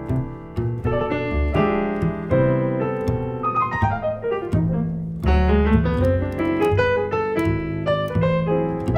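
Jazz duo of a Steinway grand piano and plucked double bass. Piano chords and melody sit over walking bass notes, and about halfway through a fast run of notes falls and then climbs back up.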